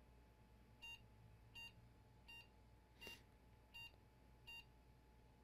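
A computer motherboard's beep speaker giving six short, faint, evenly spaced high beeps: the six-beep code that the graphics card is not being detected. A light click sounds with the fourth beep.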